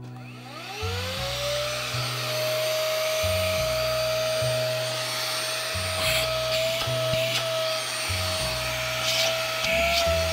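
Brigii M1 cordless handheld vacuum switched on: its motor spins up with a rising whine over the first couple of seconds, then runs steadily. A few clicks come near the end.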